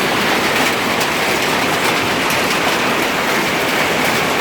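Hailstones pelting down in a hailstorm: a loud, steady, dense clatter of countless small impacts.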